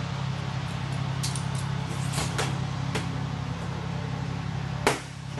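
Clecos being set with cleco pliers into the holes of an aluminium aircraft skin: a few sharp metallic clicks, the loudest near the end, over a steady low hum.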